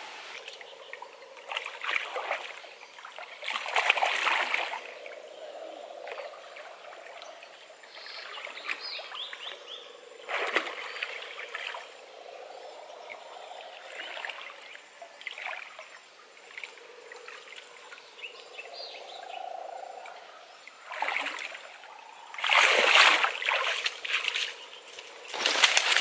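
Water splashing and sloshing in irregular bursts as a person wades through a shallow pool, hands moving in the water, with a faint steady trickle between the splashes.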